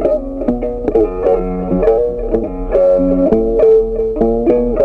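Background music: a melody of quick plucked-string notes.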